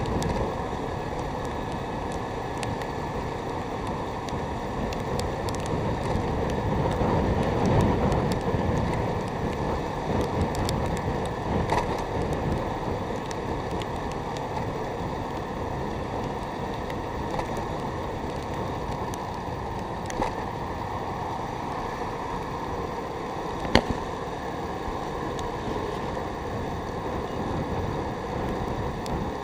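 Steady wind rush and road noise from a two-wheeler moving at speed, with the wind buffeting the microphone. It swells briefly about a quarter of the way in, and there are two short sharp knocks about two-thirds of the way through.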